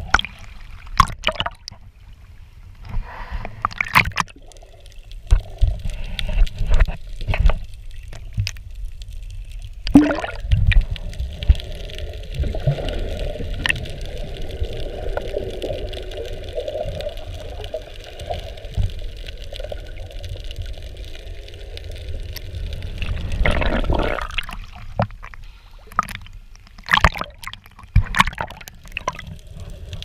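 Water sloshing and gurgling around a waterproof action camera moved through the sea just below the surface, with a steady low rumble and many scattered short clicks and knocks.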